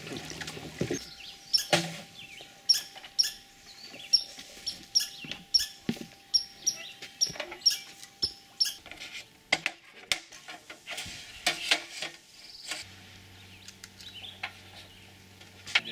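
A small animal calling with short, high chirps repeated about twice a second, over scattered knocks and clicks.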